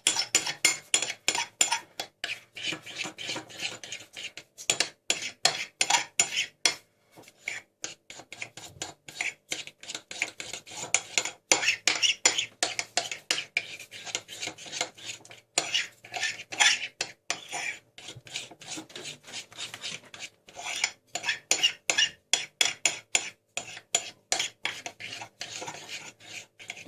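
Teaspoon scraping and tapping against a plate while stirring glue and red gouache paint together for slime: rapid, repeated strokes with a few brief pauses.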